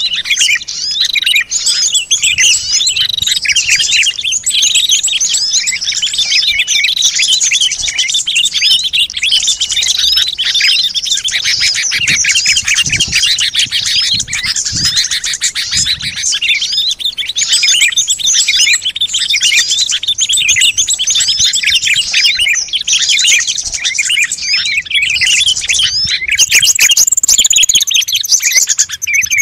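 Many small songbirds chirping and trilling at once in a dense, busy chorus, the kind of noisy small-bird chatter used as a lure recording to draw wild birds in. Near the end, higher whistled notes that slide in pitch join the chatter.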